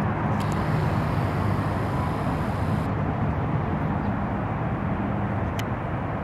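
Steady outdoor background rumble with no distinct event, and one faint click a little before the end.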